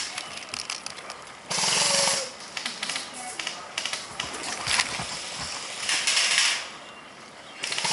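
Airsoft rifles firing rapid rattling bursts, two louder ones about a second and a half in and about six seconds in, with scattered clicks of other shots in between.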